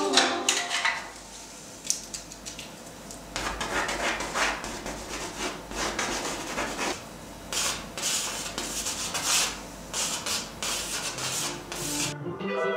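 Irregular scraping and rubbing strokes of a painting tool working paint on a surface, some short and sharp, some drawn out.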